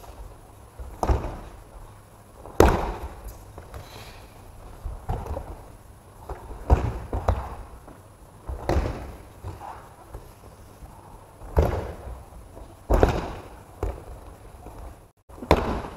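Aikido practitioners being thrown and taking breakfalls on the mats: about a dozen irregular thuds and slaps of bodies and hands hitting the mat, each echoing in a large hall, the loudest about two and a half seconds in.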